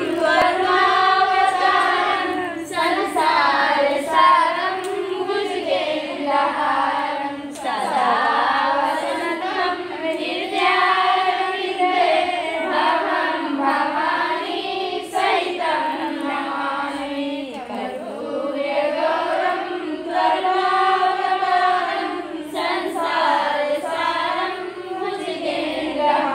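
Singing throughout: a song whose melody rises and falls in phrases a few seconds long.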